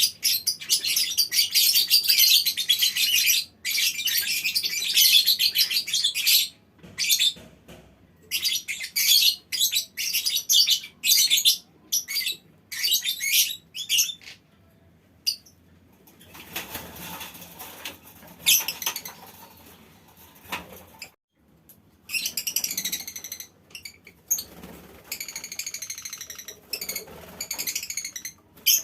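Colony of lovebirds chattering in rapid, shrill runs of calls, the long ngekek trill, broken by short pauses. About halfway through the chatter drops away for a few seconds of softer, lower rustling before the shrill runs start again.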